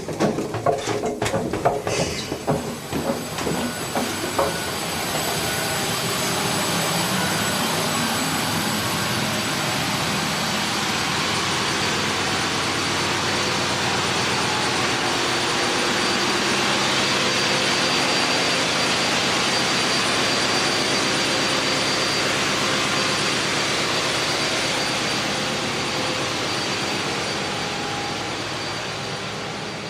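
Loud, steady engine-room din of running marine diesel generator sets, MAN L21/31 medium-speed diesels, with a constant high whine over it. A few knocks and clatters come in the first few seconds.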